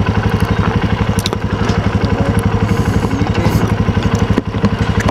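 Small motorcycle engine running steadily, with a rapid, even putter of exhaust pulses.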